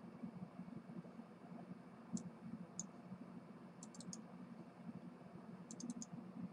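Computer mouse button clicking: two single clicks, then quick double-clicks about four seconds in and again near the end, over a faint low hum.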